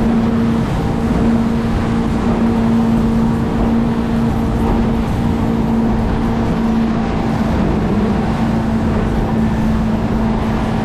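Motorboat underway at speed: the engine's steady, unchanging drone, with wind and water rushing over it.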